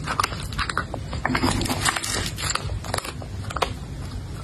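Cat chewing dry kibble: dense, irregular crisp crunches.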